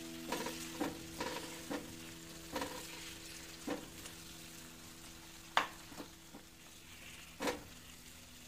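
Diced pumpkin frying in oil with cumin seeds and dried red chillies in a nonstick pan: a steady sizzle, with a wooden spatula stirring and knocking against the pan every second or so, the sharpest knock a little past halfway.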